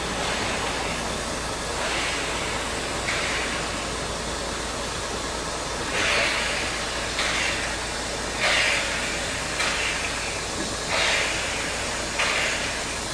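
Krauss-built 0-8-0 tank steam locomotive No. 92.2271 (1919) starting its train slowly. It gives exhaust chuffs roughly a second apart, which grow stronger from about halfway, over a steady hiss of escaping steam.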